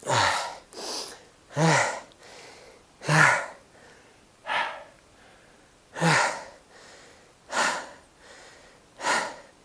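A man breathing hard from exertion: eight loud, voiced huffs in a row, mostly about a second and a half apart.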